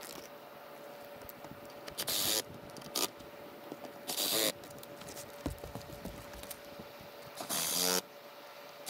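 Cordless drill/driver running in four short bursts, driving screws through the Starlink roof mount's base into the shingled roof; the last burst is the longest.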